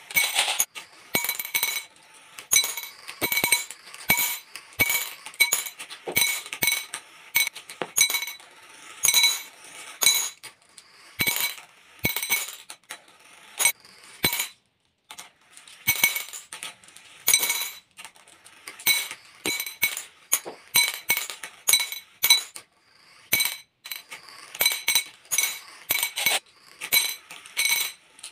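Glass marbles dropping off channel tracks into glass bowls full of marbles, clinking against the bowl and each other in quick, irregular strikes that ring briefly, with a short lull about halfway.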